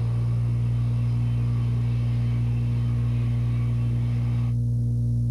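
Aircraft engine running at a steady, low, droning hum after spooling up, with a hiss above it that cuts out suddenly near the end.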